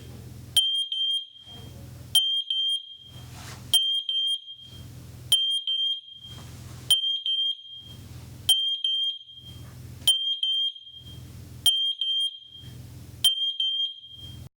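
Matelec FSA-30000 wireless photoelectric smoke alarms sounding their interconnect test signal: high-pitched beeps in quick groups of three, a group about every one and a half seconds, which shows the alarms are paired and connected.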